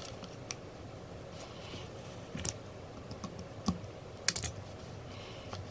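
Sparse small plastic clicks and taps from handling an opened gaming mouse as its replacement USB cable is pressed into place inside the shell, with the sharpest cluster of clicks about four seconds in.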